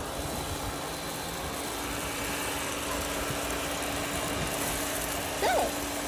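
Several robot vacuums, a Shark, a Eufy and iRobot Roombas, running together while they clean up spilled rice: a steady whirring of suction motors and brushes with a steady hum.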